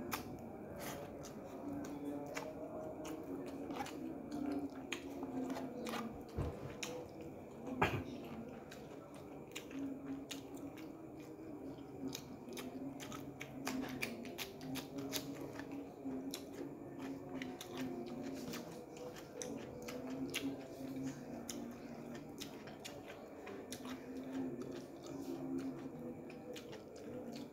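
Close-up eating sounds: steady chewing with many small, sharp, wet mouth clicks and smacks as rice, chicken hearts and raw cucumber are eaten by hand. One click about eight seconds in is the loudest.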